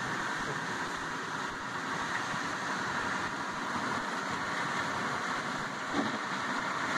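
Steady road and engine noise inside a car's cabin while driving on a snowy road, with a windshield wiper sweeping across the glass about six seconds in.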